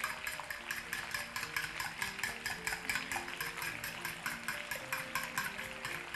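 Fork beating eggs in a glass bowl, its tines clicking against the glass in a fast, even rhythm of about five or six strokes a second.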